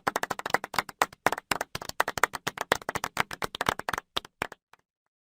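Applause: a run of quick, separate hand claps that thins out and stops near the end.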